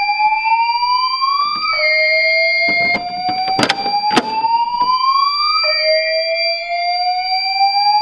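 Fire alarm speaker/strobes sounding a slow whoop evacuation tone: a tone sweeping upward over about four seconds, dropping back and repeating, with a steady high tone alongside. About three and a half seconds in come two sharp clicks as the pull station is handled.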